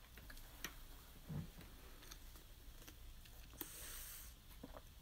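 Near silence: quiet room tone with a few faint clicks, a soft low thump a little over a second in, and a short hiss near the end.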